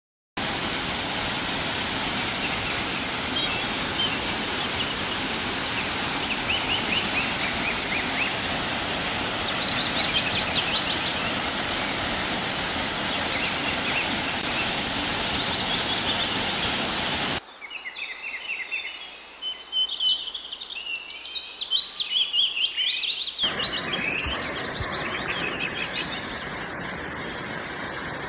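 Waterfall rushing steadily, with small birds chirping and singing over it. About 17 s in the rush drops away and the birdsong stands out; about 23 s in a steady rush of water comes back.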